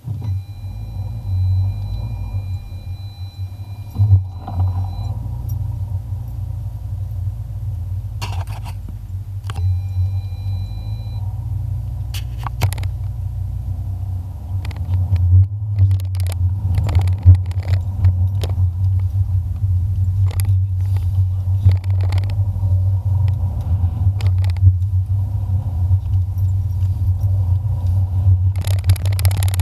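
A car's engine and drivetrain drone steadily, heard from inside the cabin as it is driven slowly over snow-packed streets. Scattered knocks and clicks come through, more of them in the second half.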